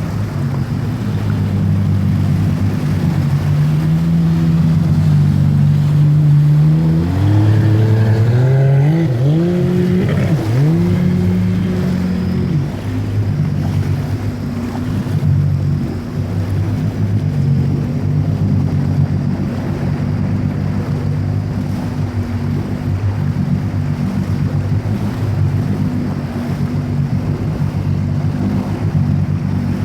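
Jet ski engine running, revving up and down several times about a third of the way in, then running at a steady pitch, with water and wind noise underneath.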